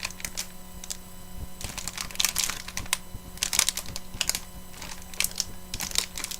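Irregular clicks and short scratching strokes of a hand tool picking and cutting at a small packet's packaging.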